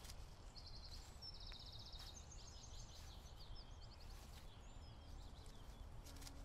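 Faint outdoor ambience: scattered high bird chirps and quick trills over a low steady rumble.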